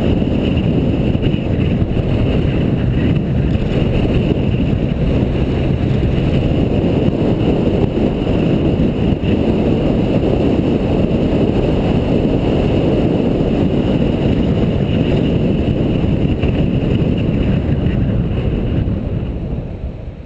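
Steady wind rush on the microphone of a camera mounted on a moving car, with the car's engine and tyre noise underneath. The sound fades out near the end.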